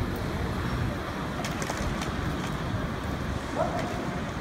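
Street traffic noise: a steady rumble of passing cars with wind buffeting the microphone, a few faint clicks in the middle, and a short wavering tone near the end.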